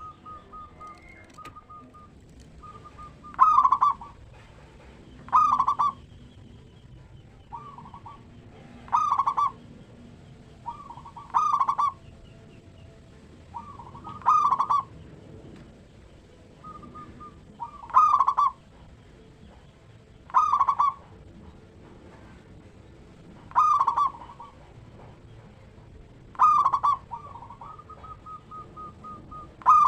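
Zebra dove (perkutut) cooing: about ten loud phrases come two to three seconds apart, with softer quick coo notes between them.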